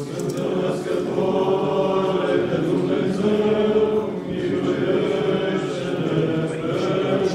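Orthodox church choir chanting a liturgical response in several voices, holding long notes together.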